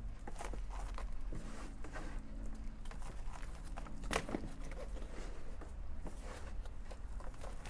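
Hands digging and sifting through potting soil and dry leaves in a planting container, with irregular rustling and crackling and one louder crunch about four seconds in. A low steady hum runs underneath.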